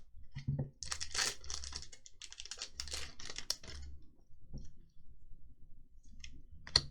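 Trading cards being handled: a quick run of clicks and rustles as cards are flicked through, fainter ticks after, then one sharp click near the end.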